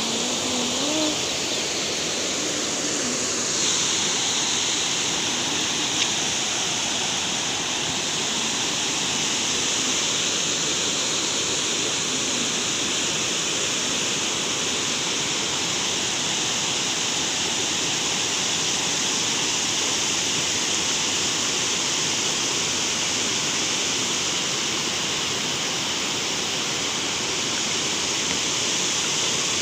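Water pouring over a low concrete weir and churning below it: a steady, unbroken rush, with one brief click about six seconds in.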